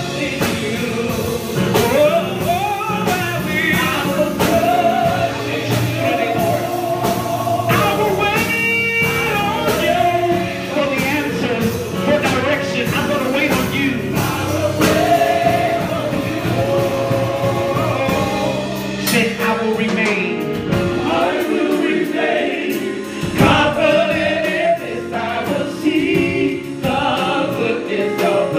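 Live gospel praise-and-worship singing: a small group of singers on microphones, with electric keyboard accompaniment.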